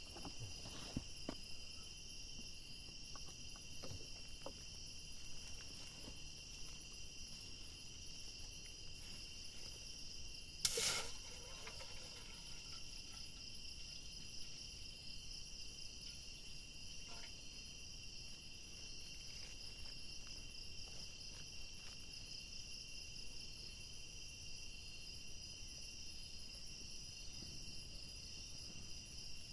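Steady insect chorus, crickets among them, a continuous high trilling at several pitches at once. A single sharp knock comes about eleven seconds in.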